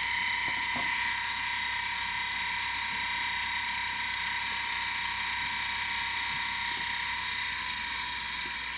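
Small early bipolar electric motor running steadily on 3 volts, a high-pitched whir of several steady tones with brush and commutator hiss from its homemade shim-stock brushes.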